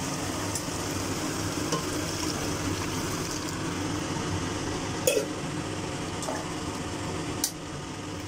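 Chicken masala sizzling steadily in a metal pot on a gas stove as water is added, with a steel ladle knocking against the pot twice, about five seconds in and again near the end.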